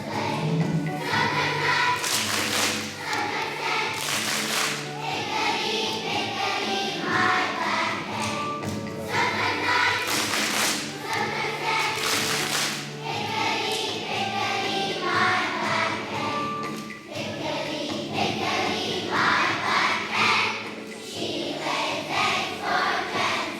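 Choir of young children singing a song with musical accompaniment, with a few short hissing bursts like a cymbal or shaker.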